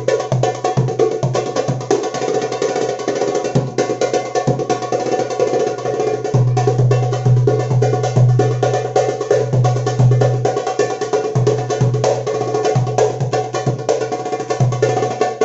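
Egyptian tabla (darbuka) drumming in fast, dense strokes within a piece of music, over a steady deep bass.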